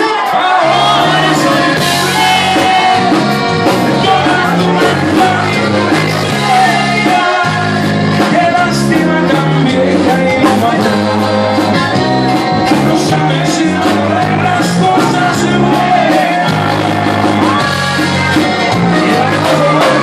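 Live norteño band playing: accordion, acoustic guitar, electric bass and drums with a man singing the lead, loud and steady, with a few shouts over the music.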